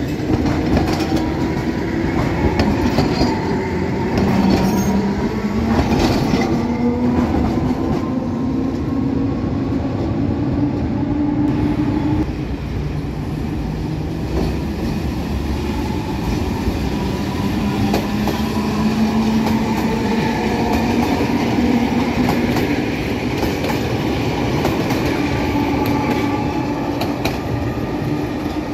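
Alexandria Raml electric tram cars running on their rails: steady rumble and clatter with clicks over the rail joints, and a low whine that climbs in pitch in steps. The sound shifts about twelve seconds in as another tram comes along.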